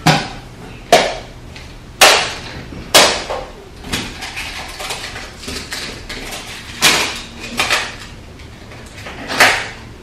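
Hard plastic toy pieces clacking and knocking together, sharp and loud. The clacks come about once a second for the first four seconds, then three more near the end.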